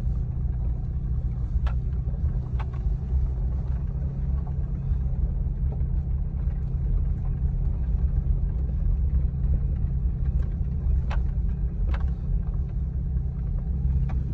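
Car engine running steadily at low speed, heard from inside the cabin as a constant low rumble, with a handful of short sharp knocks as the car rides over a rough dirt track.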